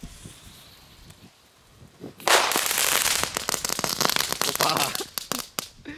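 A lit crackling ball (knetterbal), a small category 1 firework, crackling: about two seconds in it breaks into a dense rush of sharp crackles, which thins after a second into scattered separate snaps.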